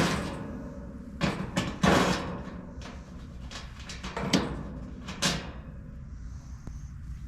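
Doors shut with about five clunks and thuds in the first five and a half seconds, the loudest two close together about two seconds in, over a steady low rumble.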